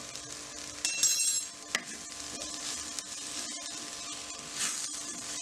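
Chopped vegetables sizzling in an oiled clay pot while being stirred and scraped with a wooden spatula. A brief metallic clink about a second in.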